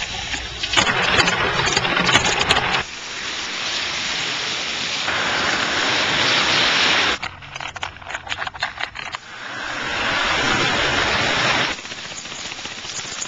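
Loose coins clattering and spilling across hard wooden surfaces, with stretches of dense rushing clatter and stretches of rapid clinking clicks.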